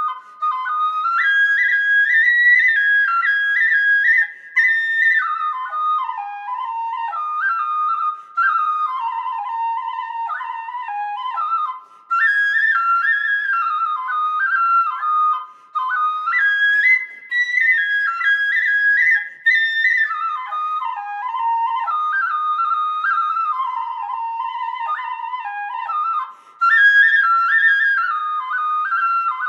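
Background music: a solo flute-like woodwind plays a high melody of stepping notes in short phrases with brief breaks, with no accompaniment.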